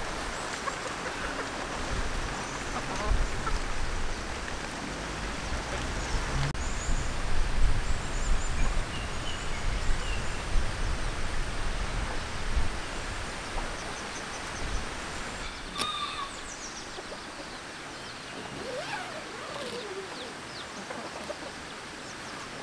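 Free-roaming chickens clucking and small birds chirping now and then over a steady background hiss.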